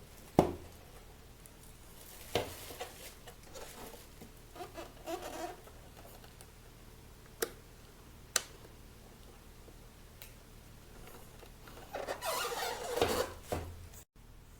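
Handling noises: a sharp knock about half a second in, a few scattered clicks and light scraping, then a longer burst of rustling and knocking near the end.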